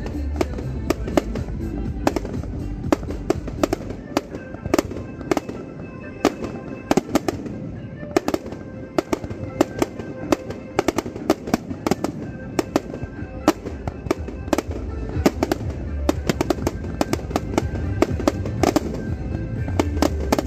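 Fireworks going off in a dense, continuous run of sharp bangs and crackles, with music playing underneath.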